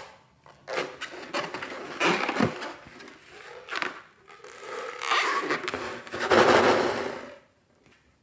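Scraping and rubbing handling noises in irregular bursts as a filled balloon is worked for slime-making, loudest and longest near the end, then stopping.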